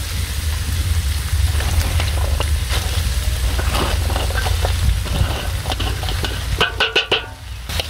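Shredded cabbage and leafy greens going into a hot wok, sizzling with many small crackles as they are pushed in by hand, over a steady low rumble. Near the end a metal plate scrapes and rings briefly against the wok as the last greens are tipped in.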